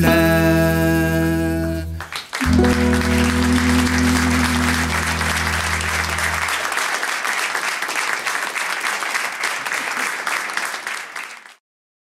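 A live band ends a song on a held chord with a strong bass, stops briefly, then rings out a last sustained chord. Audience applause swells over the final chord and carries on after it fades, until the recording cuts off abruptly.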